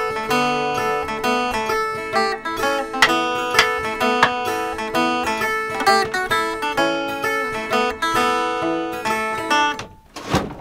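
Background music: a tune played on a picked acoustic guitar, with quick separate notes over a held low note. It stops about ten seconds in.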